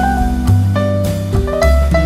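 Instrumental jazz background music, with a low bass line changing note about once a second under higher melody notes.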